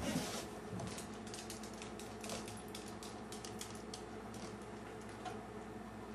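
A dog at its food: faint, irregular light clicking and ticking, several clicks a second, a little louder in the first second.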